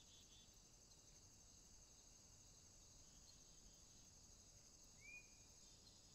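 Near silence: a faint, steady, high-pitched insect chirring, with one short rising-then-falling chirp about five seconds in.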